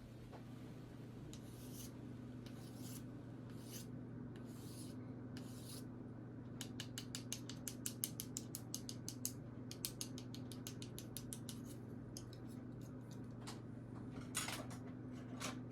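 Typing on a KBDFans KBD75 v3 custom mechanical keyboard with POM Glacier Panda switches. First come a few slower, separate keystrokes, then a fast run of clicks about seven or eight a second, and a couple of heavier presses near the end.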